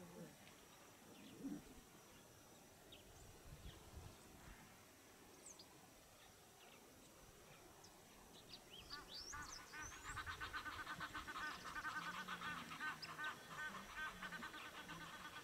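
A bird calling in a fast run of repeated notes that starts about nine seconds in and keeps going, over a quiet background with a few short, high chirps from other birds.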